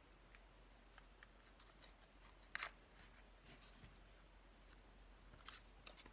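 Near silence with faint ticks and light rustles of paper being handled, with a sharper click about two and a half seconds in and another near the end.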